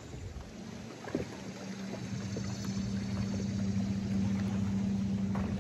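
A boat motor hums steadily from about half a second in, slowly getting louder, over a steady background hiss.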